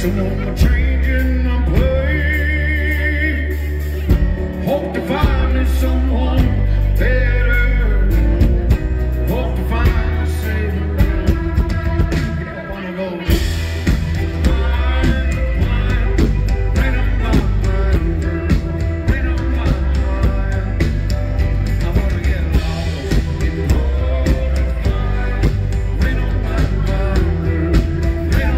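A live country-rock band playing loudly, with acoustic guitar and electric bass, and a wavering singing or lead line that comes and goes over the steady low end.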